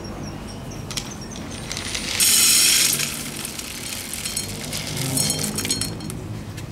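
A loud clinking rattle about two seconds in, lasting under a second, followed by lighter scattered clicks a few seconds later.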